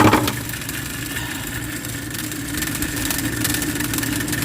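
A steady mechanical motor hum with a light rapid ticking, after a short knock at the start.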